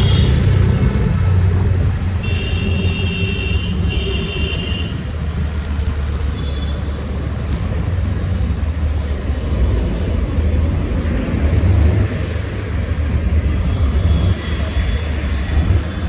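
Scooter riding through city traffic, heard from the pillion seat: a steady low rumble of wind and motor on the microphone, with the surrounding road traffic. A high-pitched tone sounds for a few seconds starting about two seconds in.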